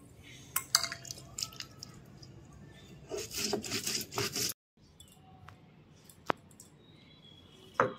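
Stone roller grinding cumin seeds on a flat stone grinding slab (sil-batta): a gritty scraping of stone on stone and crushed seed, loudest about three to four and a half seconds in, with a few sharp clicks of the stone.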